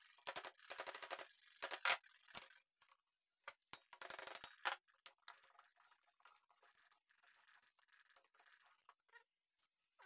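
Hammer knocking on the metal pump casing of a monoblock pump, in quick runs of rapid knocks in the first half and single knocks between, then only faint clicks of the parts being handled.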